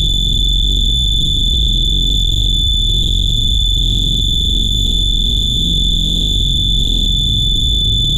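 Loud, harsh electronic noise: a steady, piercing high-pitched tone held without a break over a dense low rumble.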